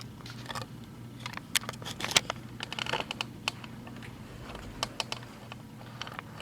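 Irregular small clicks and taps of plastic sewing clips and fabric being handled at a sewing machine, over a low steady hum.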